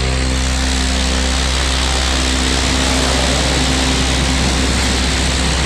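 Large 80 cm industrial standing fan with a Hawin motor running steadily on its middle (second) speed: a loud, even rush of air blowing across the microphone with a steady low hum beneath.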